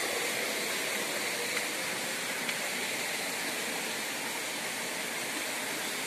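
Rushing water of a rocky waterfall stream: a steady, even hiss.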